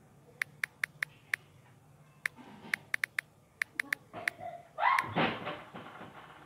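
Key-tap clicks from a smartphone's on-screen keyboard as a phrase is typed, in quick irregular runs of short sharp ticks. About five seconds in there is a louder burst of noise.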